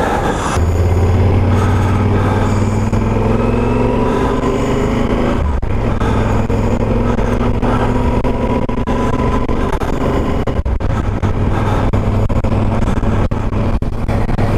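Motorcycle engine running under acceleration, its pitch rising, dropping at what looks like a gear change about five and a half seconds in, then rising again. It is picked up by a microphone hard-wired into the helmet and broken by many short crackles, in audio the rider judges unacceptable and blames on either the cables or the mic placement.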